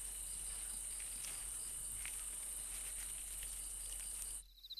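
Night-time insect chorus: a steady, high-pitched trill. It cuts off abruptly near the end and gives way to a quieter, rapid pulsed chirping.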